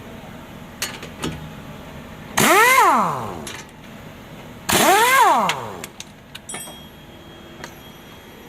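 A vehicle engine revved twice in quick succession, each rev rising sharply in pitch and then falling back to idle. Both revs come in the middle of the stretch, with a few light clicks around them.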